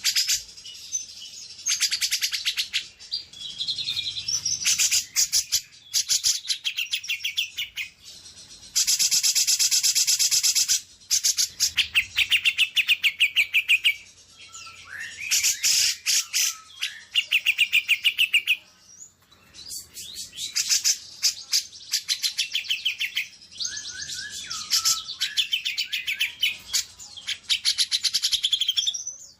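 Songbird song in repeated phrases of rapid, high trills and chattering notes. A dense, unbroken trill runs for about two seconds near the middle, and there are brief pauses between phrases.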